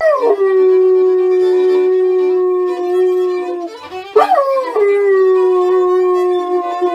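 Dog howling along with a violin being played: two long howls, each sliding down from a high start and then held steady, the second beginning about four seconds in.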